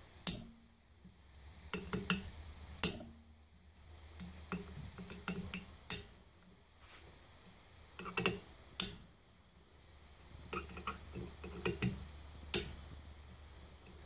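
A 3 mm hex key cracking loose the cover-plate screws of a direct-drive e-bike hub motor one at a time: five sharp clicks a few seconds apart as the screws break free, with light taps and clinks of the tool between.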